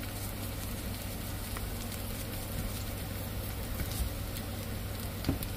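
Sliced onions frying in oil in an uruli, a steady sizzle with a faint crackle, as they are cooked down until soft.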